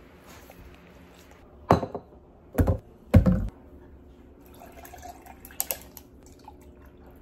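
Three loud clunks in the first half, then iced coffee poured from a plastic bottle into a glass mason jar over ice, a trickling pour ending with a click.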